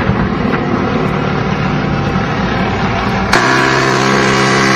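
Steady helicopter engine and rotor rumble. About three seconds in, a rapid-fire machine gun on the helicopter opens up in a long continuous burst with a buzzing tone that keeps going to the end.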